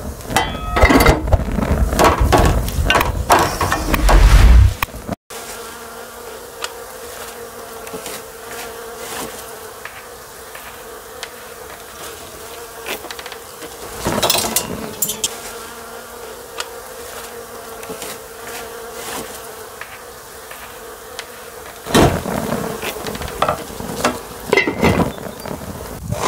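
A loud low rumble with knocks for the first few seconds, then an insect buzzing steadily, one even drone, with scattered clicks and scrapes of a wooden spoon stirring in a frying pan.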